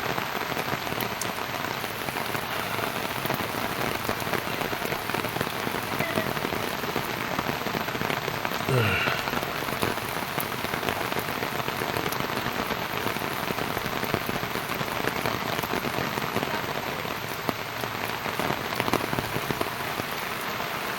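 Steady rain falling, an even hiss with no letup. About nine seconds in, a brief sound slides down in pitch.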